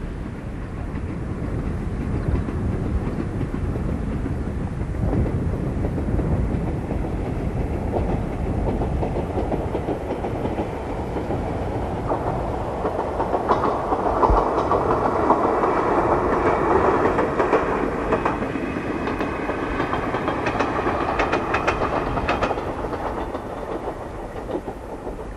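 Ichibata Electric Railway two-car electric train running past, its noise swelling from about halfway through, with a thin steady whine and a quick run of wheel clicks over the rail joints, then fading near the end, over a steady low rumble.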